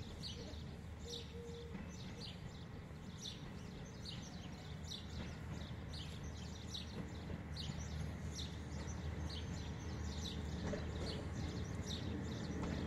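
MAN diesel railcar approaching slowly: a low, steady engine hum growing gradually louder. Many birds chirp over it.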